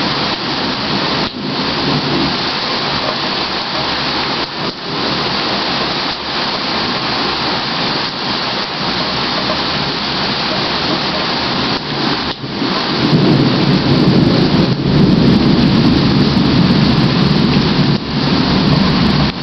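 Heavy rain falling steadily through a thunderstorm. About two-thirds of the way in, a long, loud rumble of thunder rolls in and keeps going.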